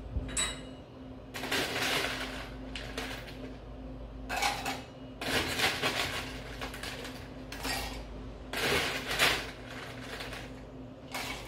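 Ice cubes being scooped from an ice bucket and dropped into a cocktail shaker, clattering in a series of irregular bursts.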